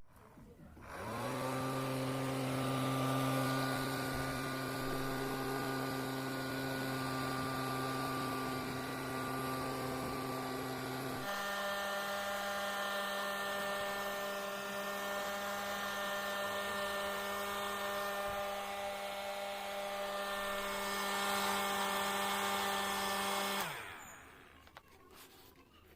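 Small battery-powered DC motor driving the fan of a homemade cardboard vacuum cleaner, switched on and spinning up to a steady whine. Its pitch shifts about eleven seconds in, and near the end it is switched off and winds down.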